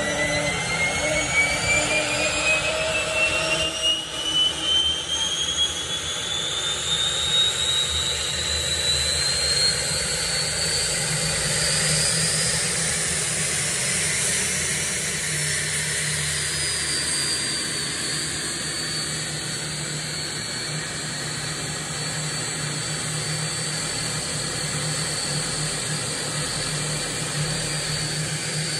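Turbomeca Turmo III C6 turboshaft engine starting: a turbine whine rises steadily in pitch for about twelve seconds as it spools up, then holds at a steady pitch over a continuous rush of air and exhaust.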